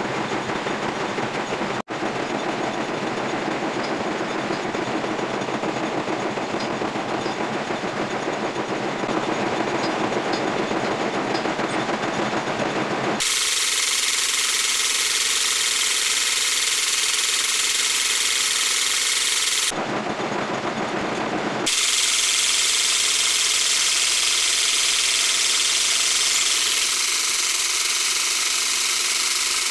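Metal lathe running and machining steel: a loud, steady hiss-like noise. Its character changes abruptly a few times, turning brighter and thinner about halfway through.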